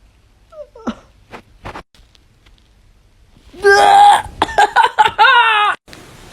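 A person sneezing loudly and suddenly about three and a half seconds in, brought on by garlic in the nose, followed by a few short vocal sounds.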